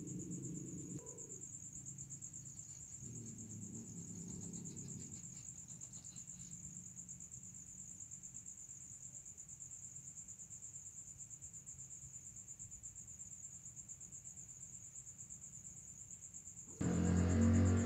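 Crickets trilling steadily in a high, fast-pulsing chorus. Soft low sustained tones sound under them in the first few seconds, and loud music starts abruptly near the end.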